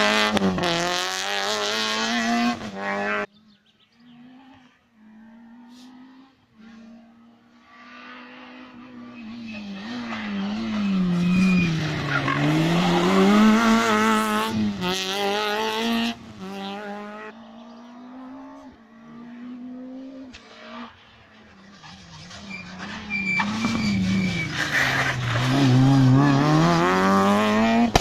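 Rally cars at race pace, engines revving high and dropping sharply through gear changes as they come up and pass. The first cuts off suddenly about three seconds in; two more build up and go by, one at the middle and one near the end, with some tyre squeal.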